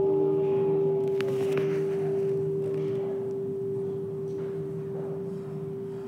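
A long bell-like ringing tone on one steady pitch with fainter overtones, slowly fading.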